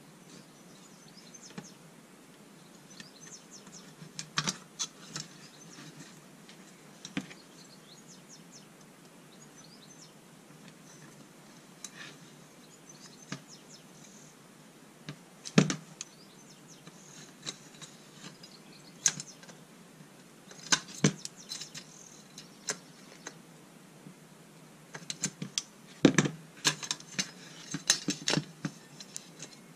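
Handling of a wire basket and a black plastic housing as they are fitted together: irregular clicks and taps of thin metal wire against hard plastic, with a busier cluster near the end.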